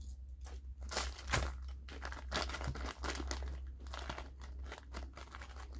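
Plastic M&M's snack bag crinkling in the hands, as a run of irregular crackles over a steady low hum.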